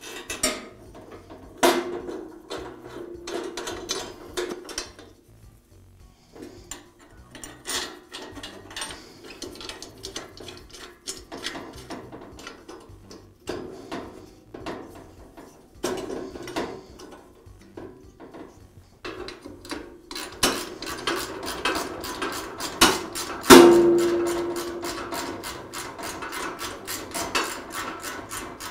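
Metal bolts and a backing plate being fitted to a tile saw's steel base and cast post: scattered metal clinks and scrapes. There is one loud ringing clank about two-thirds of the way through, and a quick run of clicks near the end.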